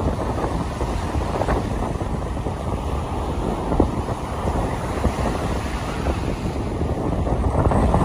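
Wind buffeting the microphone over the steady wash of surf breaking on a sandy shore.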